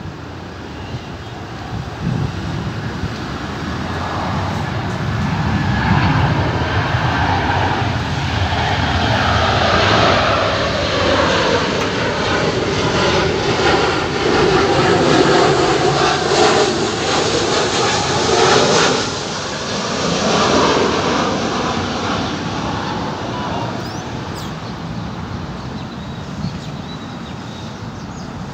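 Boeing 737-800 airliner on final approach to land, its CFM56-7B turbofans passing overhead: the roar builds for about ten seconds, the whine falls in pitch as it passes, and then it fades away.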